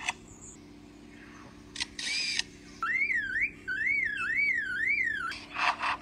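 A lyrebird mimicking a camera: a sharp shutter click, then two short clicking, whirring shutter bursts. These are followed by a warbling whistle that rises and falls about four times, and near the end by quick rhythmic rasping strokes like a saw cutting wood.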